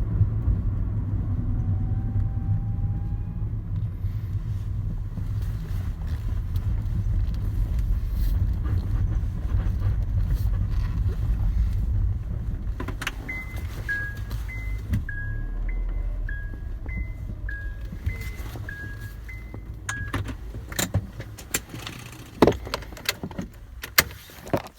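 Honda Fit car cabin: low road and engine rumble while driving, dying away as the car comes to rest. About 13 s in, a two-tone electronic chime repeats about six times, then a run of sharp clicks and knocks follows.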